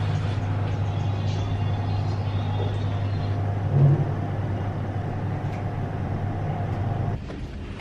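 Lift cab humming steadily as it travels, a low drone that cuts off about seven seconds in as the lift stops. A brief low thump comes about halfway through.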